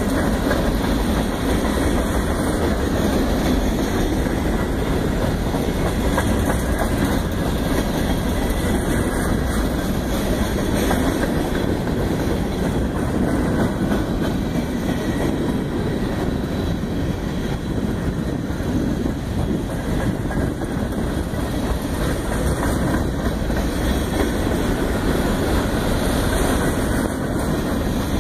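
CSX freight train's cars rolling past, a loud steady rumble of wheels on rail with no horn.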